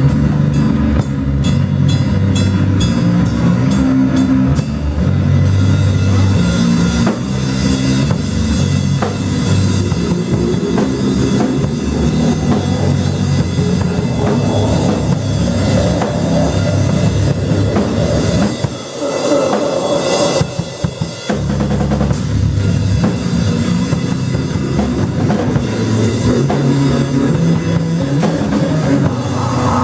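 A live noise-rock band playing loud, with drums and cymbals over sustained low bass notes. The low end drops out briefly about two-thirds of the way through, then the full band comes back in.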